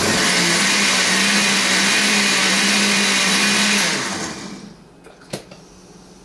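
Countertop blender running at a steady speed, blending a fruit-and-ice smoothie a second time to smooth it out. After about four seconds it is switched off and the motor winds down, and a short knock follows a second later.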